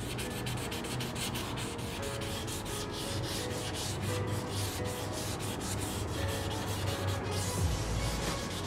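Sandpaper rubbed by hand back and forth over the primed and puttied steel body panel of a Honda C70 motorcycle: a steady run of quick scratchy strokes, several a second, smoothing the surface before paint.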